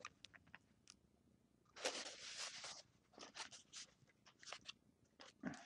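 Faint handling noises of a package being unwrapped: scattered light clicks and ticks, with a rustle lasting about a second starting about two seconds in.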